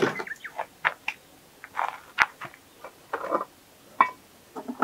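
Irregular clinks, clicks and rattles of hand tools and sockets being handled during a car repair, with one sharp click about two seconds in and a short metallic ring near the end.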